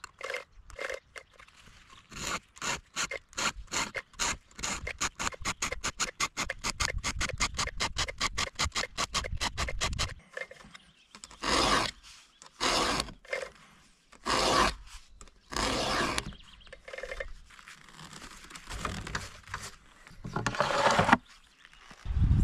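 A round file scraping across the cutters of a Stihl chainsaw chain in repeated sharpening strokes: a quick run of short rasping strokes in the first half, then slower, longer strokes about one a second.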